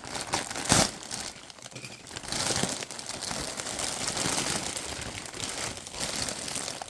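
Packaging being handled, crinkling and rustling irregularly, with a louder crackle just under a second in.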